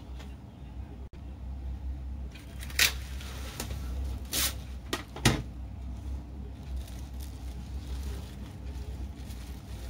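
Plastic cling wrap being pulled off its roll and torn, with several sharp crackles a few seconds in, then rustling as the film is stretched over a bowl. A steady low hum runs underneath.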